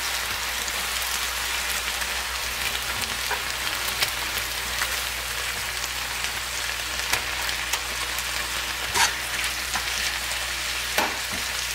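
Sliced beef with onion and tomato frying in a pan in soy and oyster sauce: a steady sizzle with a few sharp clicks, as the beef is nearly cooked through.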